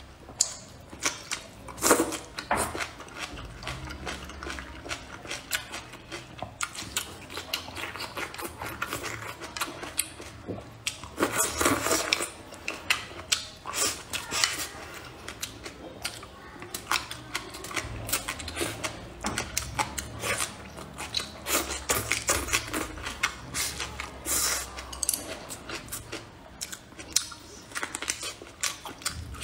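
A person eating close to the microphone: biting and wet chewing of braised pork, bok choy and rice, with frequent sharp clicks of chopsticks against a ceramic bowl. The clicks and bites come in several louder spells.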